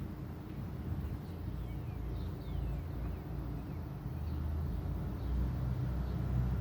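Low engine rumble, like a vehicle running close by, growing louder over the last couple of seconds, with a few faint bird chirps.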